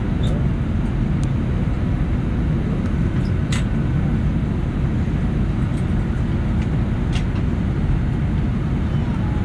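Steady low rumble of cabin noise inside an Airbus A319-111 taxiing, from its CFM56 engines at taxi power and the airframe rolling on the taxiway. A few light clicks sound over it.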